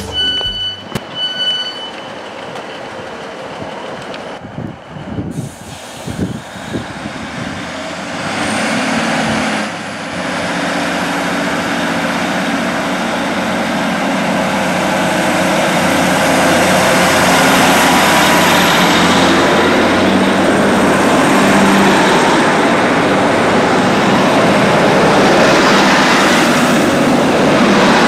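Northern Class 156 diesel multiple unit running with its Cummins diesel engines, a steady engine hum that builds from about a quarter of the way in and then holds loud and even.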